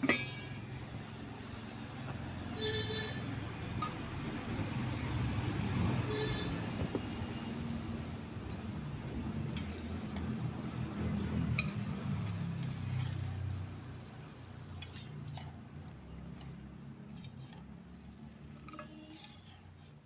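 Stainless-steel pot lids and pans clinking as they are handled and set down. Two clinks ring on a little, about three and six seconds in, followed by several shorter knocks, over a low rumble that fades in the last third.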